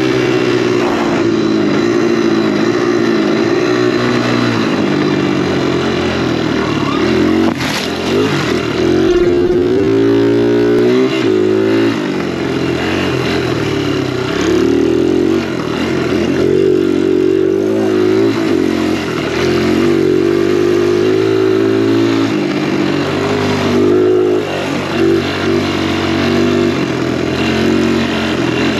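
Dirt bike engine revving hard under the rider, its pitch climbing and dropping again and again as it pulls and is shifted. A sharp knock comes about eight seconds in.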